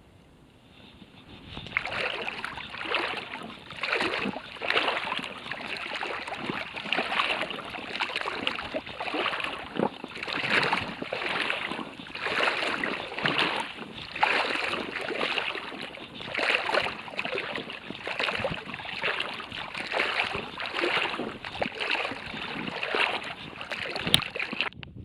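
Footsteps with a swishing sound, in a steady walking rhythm, starting about a second and a half in.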